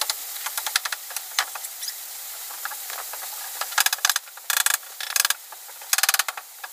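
Thin wire being twisted and worked by hand close by: a run of fine clicks and scratches, with three louder scratchy, rattling bursts in the second half.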